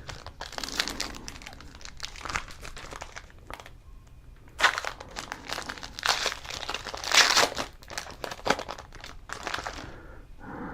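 Trading-card pack wrappers crinkling in the hands in a series of irregular bursts, as Panini Prizm packs are handled and opened.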